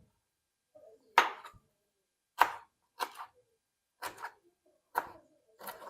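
Knife chopping fresh ginger root on a cutting board: sharp separate cuts, about one a second, some doubled.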